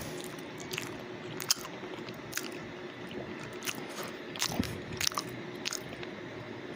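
A person chewing a mouthful of chicken lo mein close to the microphone: scattered wet mouth smacks and clicks, one or two a second, over a faint steady hum.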